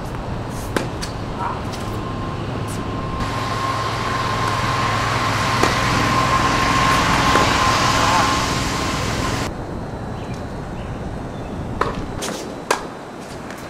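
Tennis racket strikes on the ball: a few sharp pops several seconds apart during a rally. They sit over a steady low motor hum. A louder hiss with a steady whine starts about three seconds in and cuts off suddenly some six seconds later.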